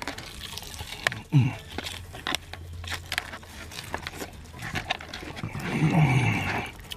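A person chewing noisily, with wet mouth clicks and smacks. There is a short falling hum about a second in, and near the end a longer, louder drawn-out "mmm" of appreciation.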